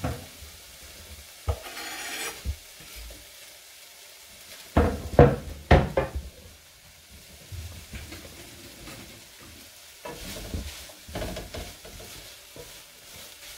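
Turkey mince sizzling quietly in a frying pan, with a cluster of sharp knocks about five seconds in and a wooden spoon scraping and stirring in the pan near the end.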